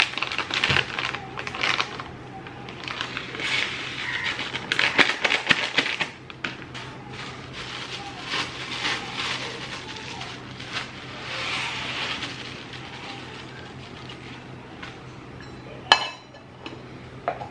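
Plastic spice packet crinkling as it is torn open and handled, with spice seeds pouring and rattling into a stainless steel container. A sharp metal clink of a steel lid comes near the end.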